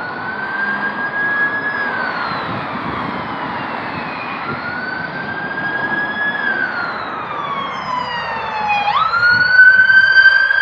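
Emergency vehicle siren wailing, its pitch sweeping slowly up and down in repeated cycles, jumping back up sharply near the end and growing louder there.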